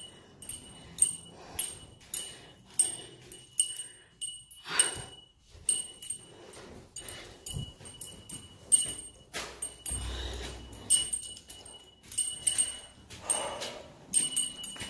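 Footsteps crunching on a gritty floor strewn with debris, roughly one or two steps a second, each with a short scraping crunch.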